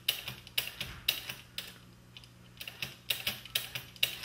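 Technics RS-M275 cassette deck's transport buttons and mechanism clicking and clunking as it is run through its modes, the clicks mostly in pairs about twice a second with a pause about halfway through, over a steady low hum. The transport now engages because its slipping drive belt has been treated with rosin anti-slip compound.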